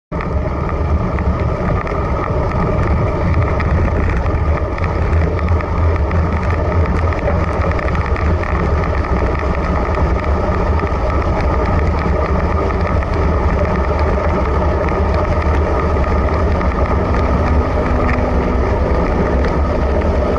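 Steady wind rush buffeting the microphone of a bicycle-mounted action camera, heaviest in the low end, as the road bike rides at speed on an asphalt road.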